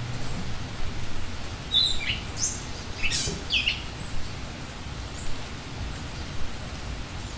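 Small songbirds chirping: a quick cluster of short, high chirps and calls about two seconds in, then a couple of faint ones later, over a steady outdoor hiss.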